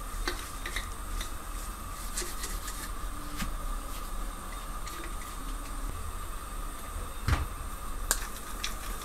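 Bottle brush scrubbing a plastic baby bottle and its cap, with scattered plastic clicks and scrapes and one sharper knock about seven seconds in, over a steady background hum.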